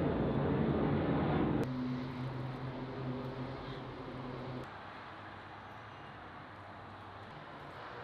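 An engine running with a steady low hum, loud at first, dropping abruptly to a softer hum after about a second and a half and fading to a quiet background about four and a half seconds in.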